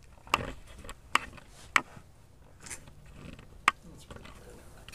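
Four sharp clicks and knocks, irregularly spaced, with soft rustling between them: a glass measuring cup of melted soft plastic being handled at a microwave.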